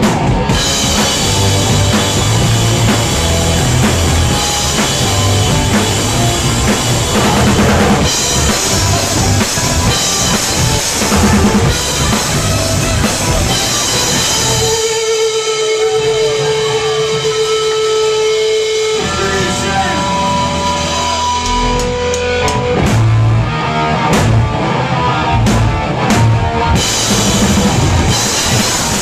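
A hardcore punk band playing loud and live through a club PA, with pounding drums, distorted guitars and bass. About halfway through, the drums and low end drop out for a few seconds, leaving a single held note ringing. Then the full band crashes back in.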